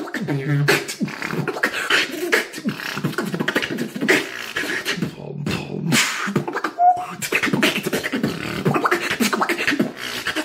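A man beatboxing solo: a fast, dense run of sharp mouth-made clicks, kicks and snares over low hummed bass tones.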